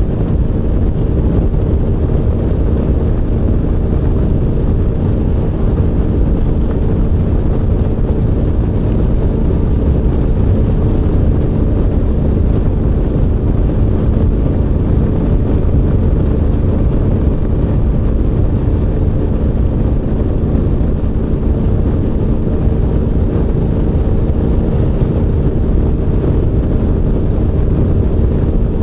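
Adventure motorcycle cruising at a steady highway speed: the engine holds an even drone that never changes pitch, under a heavy low rush of wind on the microphone.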